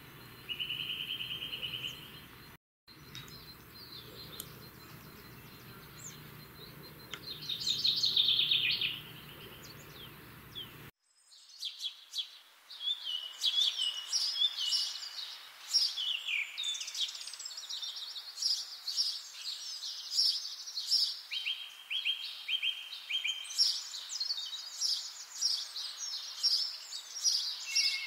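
Songbirds singing: a few separate trills and chirps over faint background noise at first, then, after a sudden change about a third of the way in, a dense run of many quick chirps and warbled phrases from several birds.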